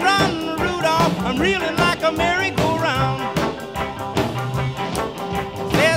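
Upbeat rock and roll music with a steady beat.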